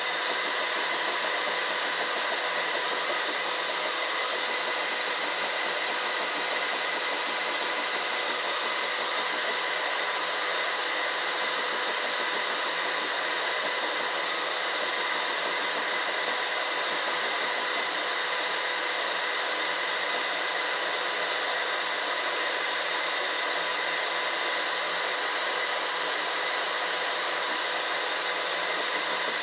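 LPKF Protomat S62 PCB milling machine milling a copper-clad board: a high-speed spindle and dust extraction running steadily, an even hiss with several steady whining tones.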